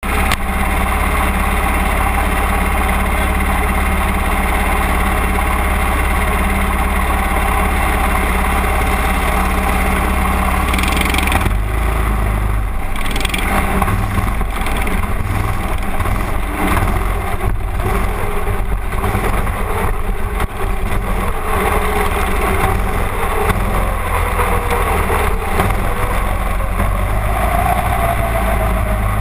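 Mini-dwarf race car's engine heard from inside the cockpit, idling steadily, then about eleven seconds in picking up under throttle as the car pulls away and keeps running.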